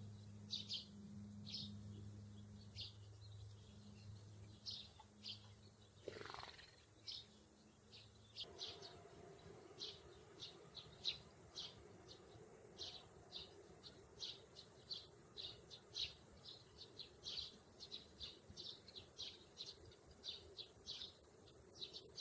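Sparrows chirping: a long run of short, high chirps, faint, coming more thickly in the second half. A low steady hum runs underneath for the first eight seconds or so, and a single falling sweep is heard about six seconds in.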